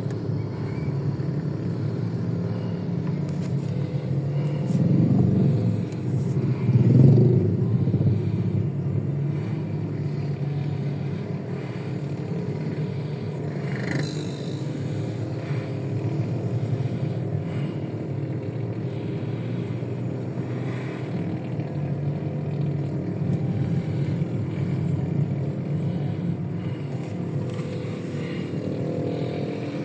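Road traffic heard from inside a car cabin: a steady low engine and road rumble, with vehicles passing close by and two louder swells about five and seven seconds in.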